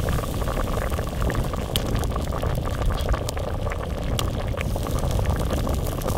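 Pot of Jamaican stew peas with chicken feet bubbling at a boil, with small scattered pops.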